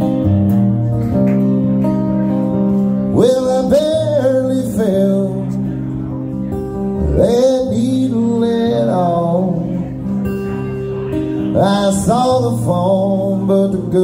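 A man singing to his own acoustic guitar: steady guitar chords under three long, wavering vocal phrases that start about three, seven and eleven and a half seconds in.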